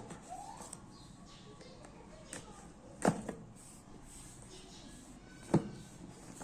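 Handling noise from unboxing a phone: sharp knocks and clicks, a small one a little over two seconds in and louder ones about three seconds in and near the end, over faint room noise.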